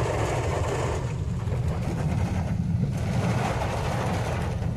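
Inside a car's cabin while driving through heavy rain: a steady low road and engine rumble with an even hiss of rain and tyre spray over it.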